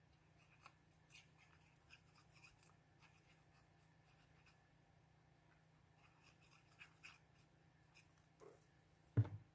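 Faint handling of paper on a craft table: quiet scattered clicks and light rustles, with one short soft knock near the end.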